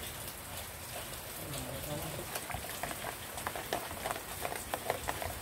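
Steady rain hiss with water splashing into a stainless steel kettle at first. From about halfway on comes a run of quick scraping clicks as the inside of the kettle is scrubbed by hand.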